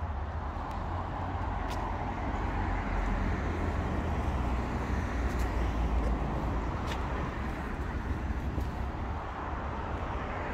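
Road traffic: cars driving past on the street, a steady rumble and tyre noise that swells in the middle and eases toward the end.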